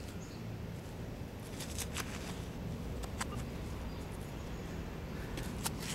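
Hands digging and sifting loose soil in a small freshly dug hole: a few short gritty scrapes and crunches over a steady low background rumble.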